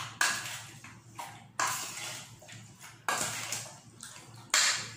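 Chicken pieces being stirred and turned in a marinade in a stainless steel mixing bowl: about five sudden knocks against the bowl, each followed by wet shuffling that fades over about a second.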